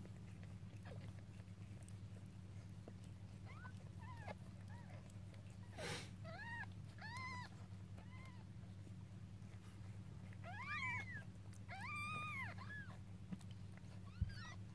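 Newborn kittens mewing: short, high cries that rise and fall, coming in small clusters, over a steady low hum. There is one sharp click about six seconds in.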